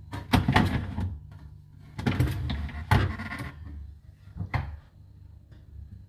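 Plastic crisper drawer in a Hotpoint fridge freezer being slid and handled, in two spells of sliding noise. There is a sharp knock about three seconds in and a shorter clatter a little later.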